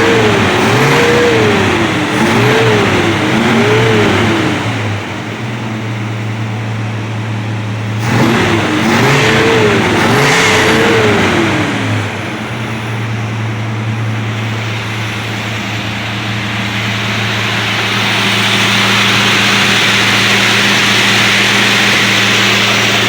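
Dodge Charger's 383 big-block V8 blipped several times in two bursts, each rev rising and falling, then settling to a steady lumpy idle, with a rushing noise swelling in the last few seconds. The revving is clearing carbon and soot out of the exhaust after new spark plugs were fitted.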